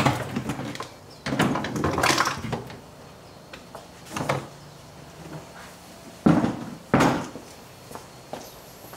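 Large plastic frunk tub being pried out of a car: plastic clips popping, scraping and rattling as it comes free, then two loud sharp knocks less than a second apart about two-thirds of the way through.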